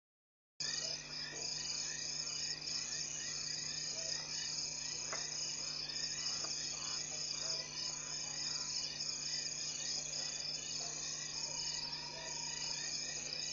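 A dense, steady chorus of night insects chirring, coming through a live wildlife-camera audio stream over a faint low hum. It starts abruptly about half a second in.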